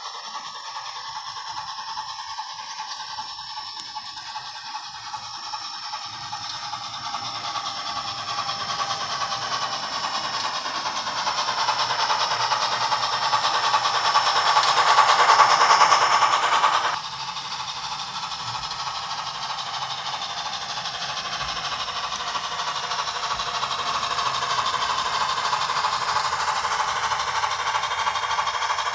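Soundtraxx Tsunami sound decoder in an N-scale model steam locomotive playing steam locomotive sounds through its small onboard speaker, mixed with the rolling of a long string of model freight cars on the track. It grows louder as the train comes past, drops suddenly about 17 seconds in, then slowly builds again.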